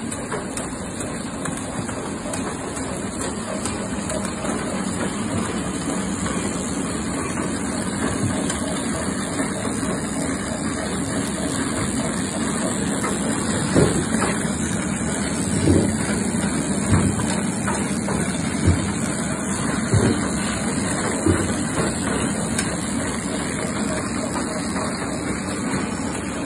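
Soap-wrapping machine and conveyor line running with a steady mechanical hum. A few sharp knocks come from about halfway to three-quarters of the way through.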